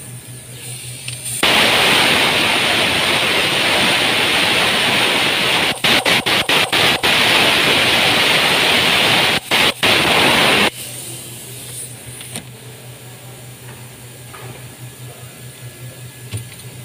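A loud, steady rushing hiss. It starts abruptly about a second and a half in, flickers off and on several times around six seconds and again near nine and a half, and cuts off abruptly near eleven seconds.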